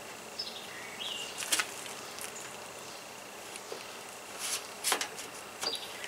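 Light plastic clicks and rattles, loudest about one and a half seconds in and again near the end, as a window air conditioner's accordion side curtain panel is worked into its track. Under it, a faint steady insect buzz.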